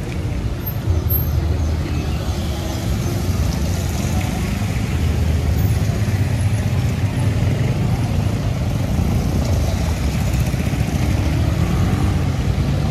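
Street traffic of motorcycles and cars passing close by on a rain-wet road: engines running with the hiss and splash of tyres on the wet surface.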